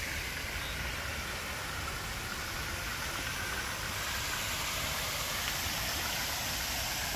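Steady rush of splashing water from a pond fountain spraying into the water.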